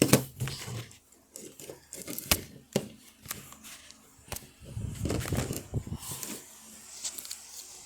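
Elmer's butter slime (glue mixed with activator) being mixed: irregular sticky crackles and sharp clicks.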